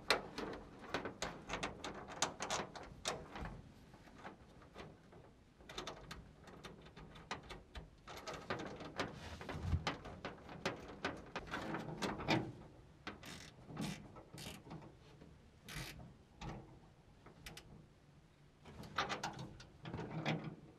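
Light metallic clinks and clicks from a short steel chain and its bolt hardware: the chain is hung on the toolbox's long mounting bolt and a nut and washer are run on and tightened. The clicks come irregularly throughout.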